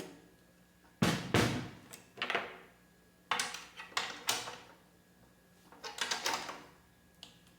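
Snare drum being struck during tuning, to check the pitch of a newly fitted head. The hits come singly and in quick groups of two or three, each ringing briefly and fading.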